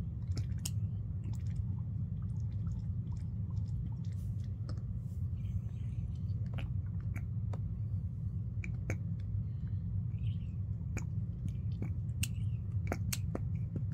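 Small irregular clicks and taps of a plastic toy bottle pressed against a baby doll's mouth, coming more often near the end, over a steady low hum.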